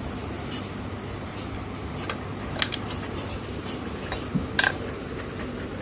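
Light metallic clinks and taps as the steel slide plate and other metal parts of a full-shuttle sewing machine are handled: a few scattered clinks, the loudest and most ringing one a little before the end.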